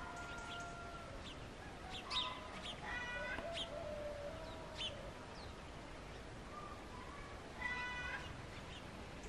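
Birds chirping outdoors: scattered short high chirps, with three brief pitched animal calls, one at the start, one about three seconds in and one near the end.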